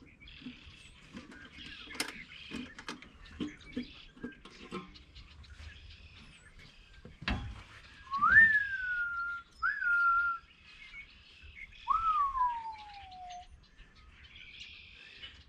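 Three clear whistled notes sliding in pitch, in the second half: the first rises and levels off, the second is short, and the last falls away slowly. Before them come faint clicks and knocks of the air cleaner lid being worked loose and lifted.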